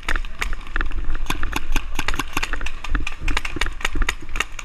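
Paintball markers firing in rapid, irregular volleys: many sharp pops a second, bunched in quick strings, over a low rumble of movement on the microphone.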